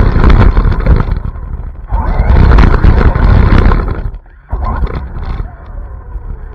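Onboard sound of a high-speed RC car: heavy wind buffeting and tyre rumble on the asphalt, with the motor's whine rising and falling. About four seconds in it drops off sharply, then fades as the car slows.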